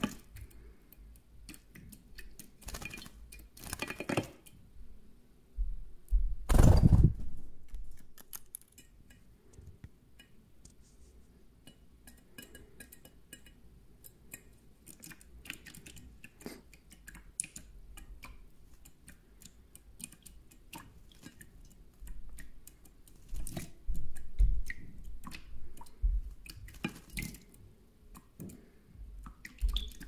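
European goldfinch bathing in a shallow stainless steel dish, beating its wings in the water so that it splashes against the metal in bursts. The loudest burst comes about seven seconds in. A quieter middle stretch holds only small taps, and the splashing starts up again over the last several seconds.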